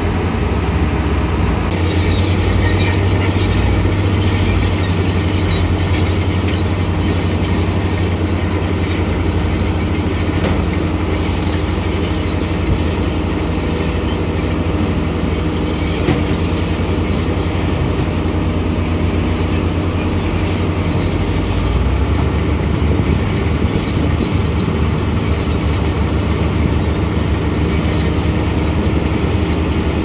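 Dongfeng dump truck's diesel engine running steadily under load while the hydraulic hoist raises the bed and the soil load slides out of the back.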